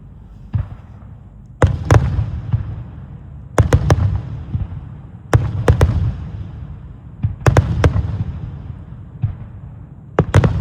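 Star mine aerial firework shells bursting in quick clusters, groups of two to four sharp bangs about every one and a half to two seconds, with a low rumbling echo between them.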